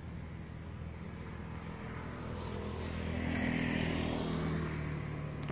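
Motor vehicle passing by, its engine hum swelling to a peak a little past halfway and then fading.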